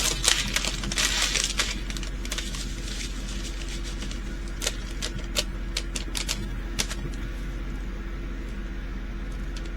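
Small resin diamond-painting drills clicking and rattling as they are handled, with a denser rattle in the first couple of seconds and then scattered light clicks, over a steady low hum.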